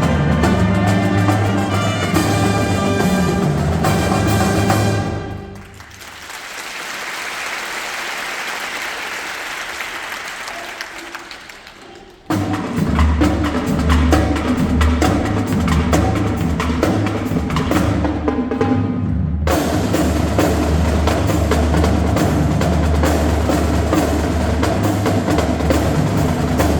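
Marching band playing with percussion prominent. About five seconds in, the band drops out, leaving a steady hissing wash for some six seconds. It comes back in sharply together about twelve seconds in.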